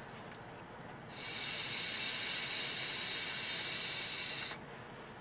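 A long drag on a Smok VCT Pro sub-ohm vape tank: air hissing steadily through the tank's airflow for about three and a half seconds, starting about a second in and cutting off sharply near the end.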